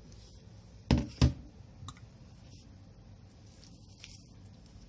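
Two dull knocks about a second in, a third of a second apart, from a white plastic colander of mung bean sprouts being handled over a steel sink, followed by a couple of faint clicks.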